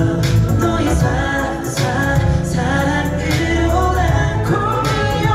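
K-pop boy group's male voices singing a pop song live over a backing track with a steady drum beat and bass.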